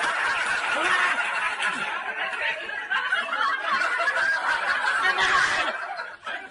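People laughing and snickering in short, broken bursts, with a dense noisy background, for about six seconds; it fades out near the end.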